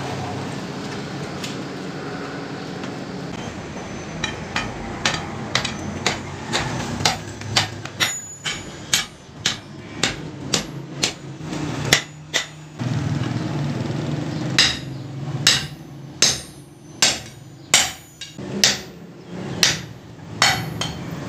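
Hand hammer striking a red-hot iron rod on a steel block anvil as it is bent into a ring: a long series of sharp ringing blows, starting light about four seconds in, growing louder, with a short pause around the middle, then steady blows about once a second. A steady low hum lies underneath.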